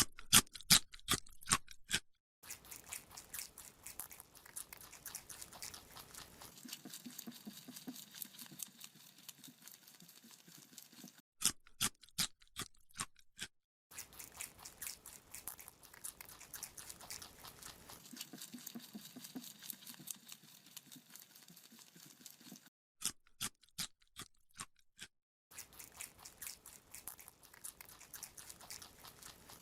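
Rabbit chewing a carrot: a few loud, crisp crunches as it bites off pieces, then fast, quieter steady chewing. The pattern comes three times, separated by brief silences.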